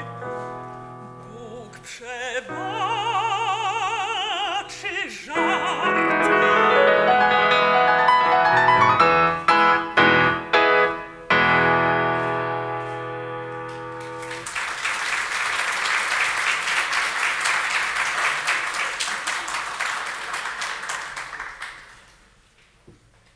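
A woman's operatic singing with wide vibrato over a Yamaha grand piano, the piece closing on piano runs and chords. About two-thirds of the way through the music stops and audience applause takes over, dying away near the end.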